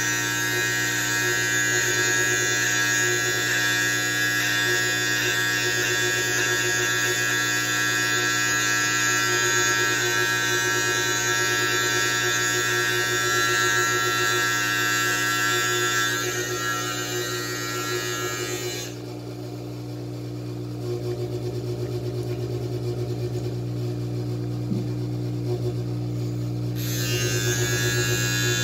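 Electric beard trimmer with a guard comb running with a steady buzz as it cuts mustache and beard hair. About two-thirds of the way in, the brighter upper part of the sound drops away for several seconds, leaving a lower hum, then comes back near the end.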